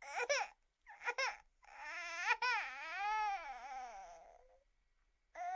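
Baby crying: two short fussy cries, then one long wavering wail that rises and falls in pitch for about three seconds, and another short cry near the end.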